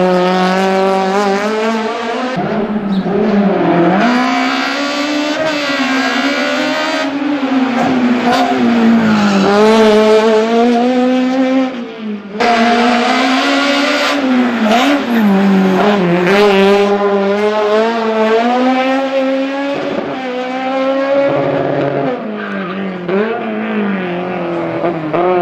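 Small hatchback race car's engine revving hard, its pitch climbing and dropping again and again through tight slalom turns and gear changes, with tyre squeal in the corners. The sound breaks off briefly about halfway and picks up again.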